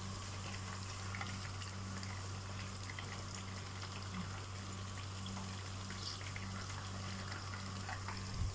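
Eggplant slices sizzling as they shallow-fry in oil in a pan, with faint scattered crackles over a steady low hum.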